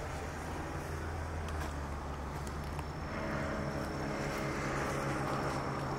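Steady low engine hum, with a second engine's droning note coming in about three seconds in.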